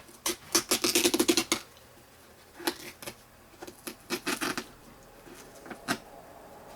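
Plastic heater box halves being pulled apart, crackling and clicking in several rapid bursts as the adhesive-taped seam lets go. It sounds as if the box is breaking, but it is not.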